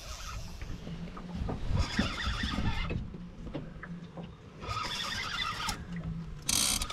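Spinning reel's drag buzzing in two bursts of about a second as a hooked fish pulls line against the bent rod.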